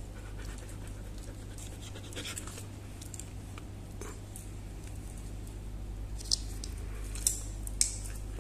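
Husky panting, with a few light metal clicks from its chain collar and leash clip being handled, over a steady low hum.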